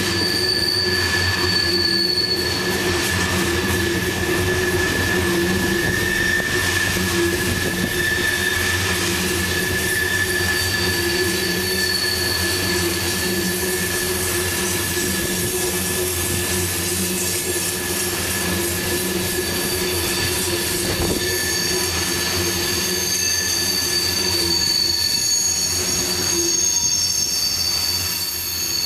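Coal hopper cars rolling past on a curve, their wheel flanges squealing against the rail in several steady high tones over the continuous rumble of the wheels; a higher squeal joins past the middle.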